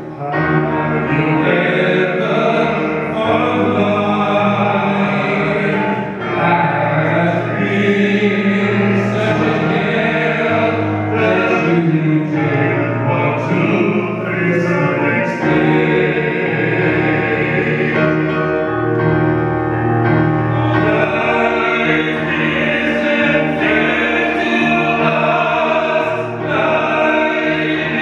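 A vocal trio, two men and a woman, singing together in harmony in an operatic style into microphones, with long sustained notes and no break.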